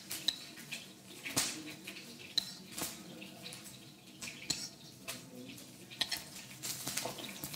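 Metal spoon clinking and tapping against a ceramic bowl and plate as sauce is spooned out, a sharp clink every second or so, over low kitchen background noise.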